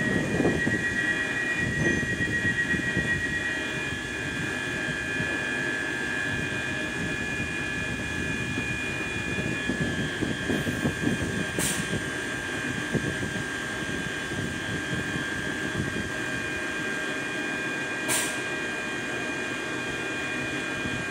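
A ScotRail Class 385 electric train standing at the platform, its on-board equipment giving a steady high whine of several tones over a low rumble. A fast-pulsing tone fades out in the first few seconds, and two brief sharp sounds come about twelve and eighteen seconds in.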